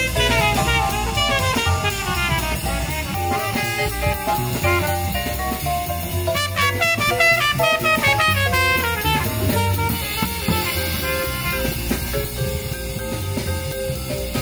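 Live small jazz combo playing a jazz standard: a trumpet plays a melodic line over drum kit with cymbals, upright bass and vibraphone. The quick runs give way to longer held notes about two-thirds of the way through.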